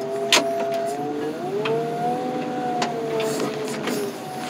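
Compact loader's engine running as the machine drives, its pitch rising about a second and a half in and dropping back near the end, with a few sharp clanks, the loudest just after the start.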